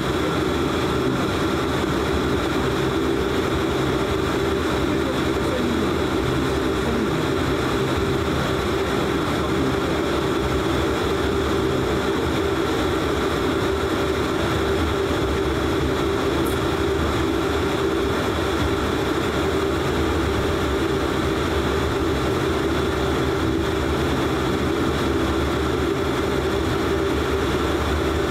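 Inside the cabin of a Bombardier DHC-8 Q400 taxiing: its two Pratt & Whitney Canada PW150A turboprop engines and propellers running at low taxi power, a steady drone with a constant hum.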